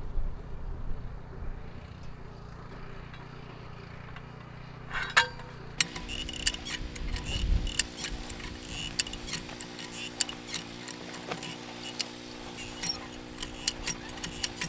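High-lift farm jack clicking and clacking as its handle is pumped and it ratchets up its bar, jacking a steel fence post out of the ground on a strap. The sharp, irregular clicks begin about five seconds in, after a low rumble.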